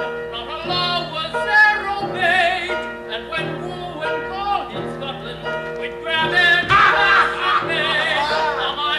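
Stage-musical singing with instrumental accompaniment, voices held with vibrato over sustained low notes, from a cassette recording of a live performance; it swells louder a few seconds before the end.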